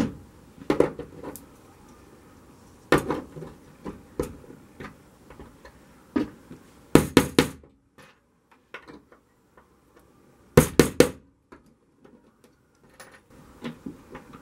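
Sharp knocks and taps on a wooden workbench, some single and some in quick clusters of two or three, as a strip of lead came is laid down and a nail is tapped in to hold it.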